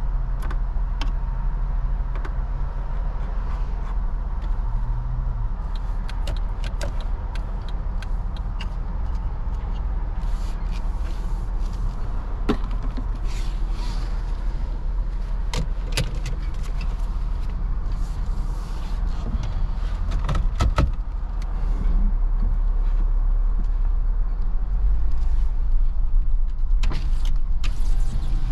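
A Jeep Wrangler's engine running at idle, heard inside the cabin as a steady low rumble, with scattered clicks and knocks from switches and controls being worked. The rumble gets louder about three quarters of the way through.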